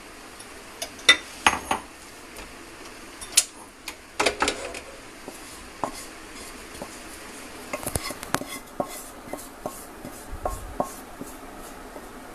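Wooden spatula scraping and knocking against a nonstick pan as roasted coriander seeds are emptied into a glass bowl: scattered sharp knocks with a run of lighter taps later on.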